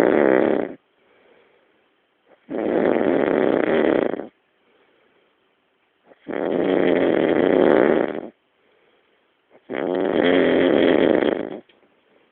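A man snoring loudly in slow, regular cycles. One snore is already under way at the start and ends within the first second. Three more follow about three and a half seconds apart, each lasting almost two seconds, with faint breaths between.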